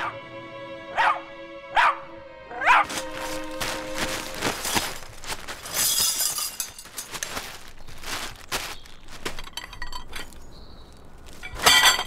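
Film score holding a steady chord, with a small dog barking a few times over it and once more near the end. In between there is a long stretch of clattering, rustling noise.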